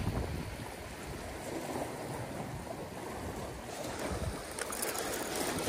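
Sea waves washing over shoreline rocks, a steady wash of surf, with some wind on the microphone.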